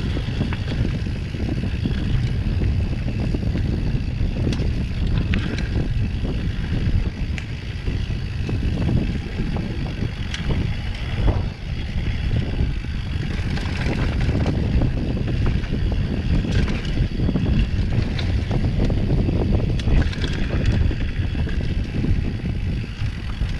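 Wind rushing over the microphone and mountain bike tyres rolling down a dirt trail, a steady rumble with scattered knocks and rattles from bumps.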